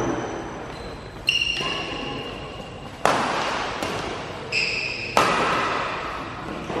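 Badminton rackets striking the shuttlecock in a doubles rally: four sharp hits a second or two apart, some with a brief ringing tone, echoing in a large hall.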